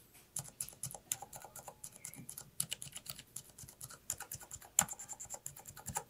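Silent mechanical key switches with built-in dampeners pressed over and over on a key switch sampler: a quick, irregular run of faint, soft taps with no click, one slightly louder tap about five seconds in.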